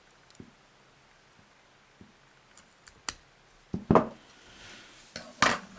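Snips or scissors being handled and clicking shut: a few light clicks, then two louder sharp clacks about four and five and a half seconds in.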